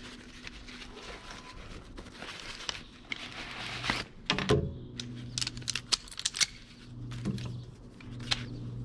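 A small folding stool being handled: its fabric pouch rustles, then a quick run of clicks and knocks from the frame as it is taken out and opened.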